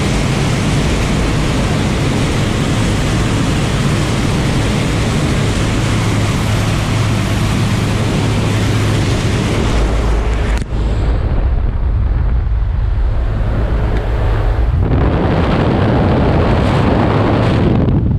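Steady drone of a jump plane's engine and propeller, heard inside the cabin. About ten seconds in the roll-up door is opened, and rumbling wind buffeting on the microphone takes over.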